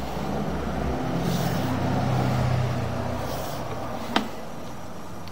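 An engine running steadily with a low hum, swelling slightly near the middle, and one brief sharp squeak dropping in pitch about four seconds in.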